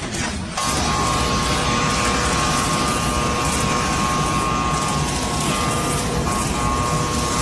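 Factory machine running steadily, a constant rumble with a steady high whine over it, starting abruptly about half a second in.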